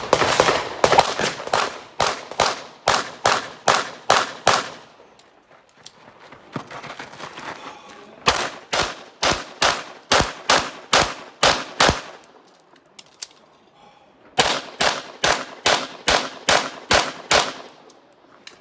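Semi-automatic handgun fired in three rapid strings of about ten shots each, roughly three shots a second, with pauses of a few seconds between the strings.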